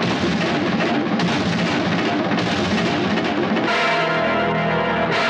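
Film background music, dense and busy, changing about three and a half seconds in to a held, sustained chord.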